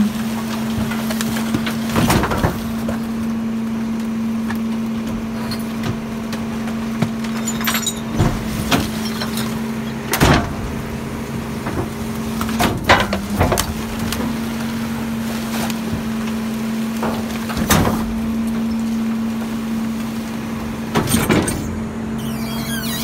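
Garbage truck engine and hydraulics running with a steady hum while a 6-yard dumpster is tipped over a McNeilus rear-loader hopper to empty it. A handful of sharp metal bangs mark the container knocking and cardboard and bags dropping out.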